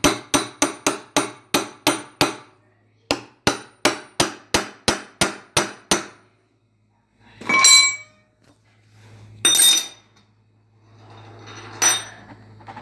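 A hammer striking metal in two quick runs of blows, about four to five a second, with a short pause between them, typical of driving a washing-machine drum bearing out or in. A few separate ringing metallic clanks follow in the second half.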